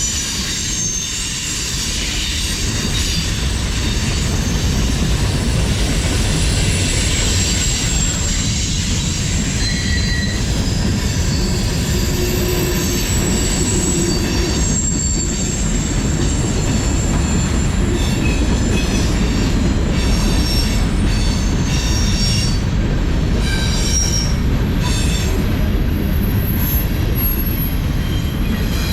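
CSX manifest freight train rolling past: a steady heavy rumble of wheels on rail, with high-pitched wheel squeal coming and going over it.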